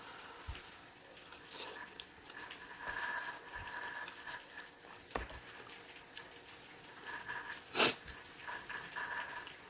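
Close-miked eating sounds: chewing and lip smacking on soft, soupy oxtails and butter beans, with a few sharp clicks of a metal spoon against a plastic bowl and one louder, sharper sound about eight seconds in.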